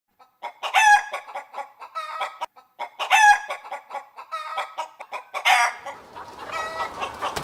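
Rooster clucking and crowing in a string of high calls, loudest about a second in and again about three seconds in, with a steady hiss in the last second or so.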